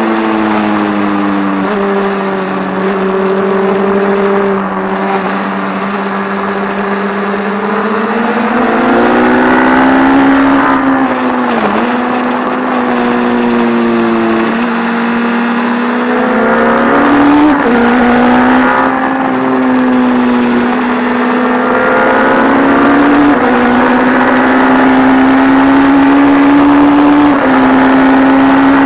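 Onboard engine note of a 1170 cc P&M Kawasaki inline-four race motorcycle running hard at around 8,000 rpm, heard from behind the fairing. The pitch dips sharply about twelve seconds in and shifts up and down in small steps as the throttle and gears change, over a rush of wind noise.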